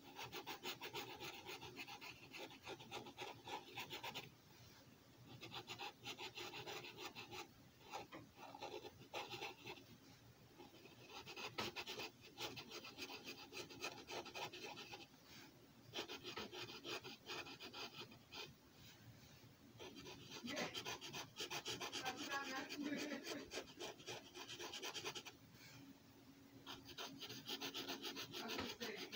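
Sharpie marker tip scratching across paper in rapid short strokes, coming in runs of a few seconds broken by brief pauses.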